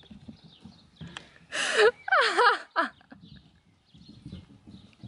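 Bursts of high-pitched laughter about one and a half to three seconds in, one cackle rapidly bending up and down in pitch, over faint low thumping.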